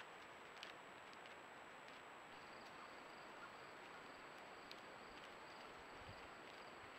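Near silence from an infrared trail camera: steady hiss with a thin high electronic whine, a few faint ticks and rustles from a wild boar moving close by, and a faint high insect trill that starts about two seconds in.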